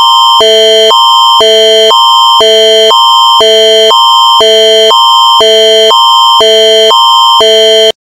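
Canadian Alerting Attention Signal, the Alert Ready emergency-alert tone: loud, with a higher chord and a lower chord alternating about every half second for about eight seconds, then cutting off sharply.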